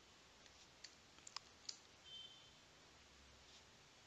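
Near silence broken by a few faint clicks of a computer mouse and keyboard, about four of them between one and two seconds in. A brief faint high tone follows just after.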